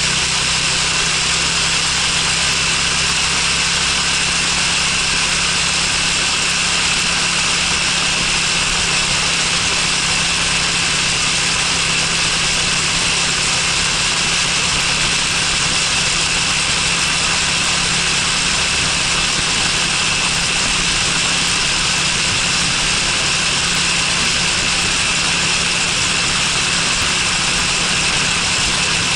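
Honda Freeway 250cc scooter engine running steadily while riding along, under a steady rush of road and wind noise.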